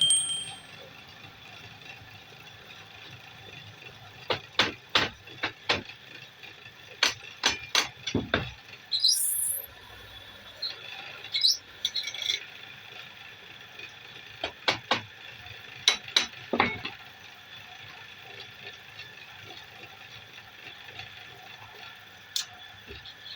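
Workshop tool sounds: a series of sharp metal clicks and knocks in clusters over a faint steady machine hum, with a few short high rising squeals.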